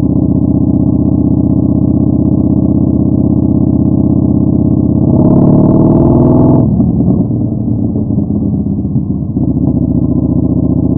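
Yamaha Bolt 950's air-cooled V-twin through a Vance & Hines Twin Slash staggered exhaust, running steadily under way. About five seconds in it revs up, rising in pitch and getting louder for about a second and a half. It then comes off the throttle into uneven, lumpy running for a couple of seconds before settling back to a steady pull.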